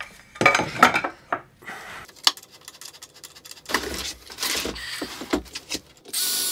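Metal clinks, knocks and rubbing as aluminium extrusion, angle brackets and screws are handled and fitted to the CNC machine's frame. Near the end a cordless drill-driver starts with a short steady whir.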